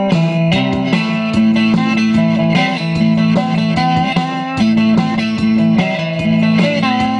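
Electric guitar played solo through an amplifier, picking a riff of single notes and chords over low notes that keep coming back. One note is bent up and down near the end.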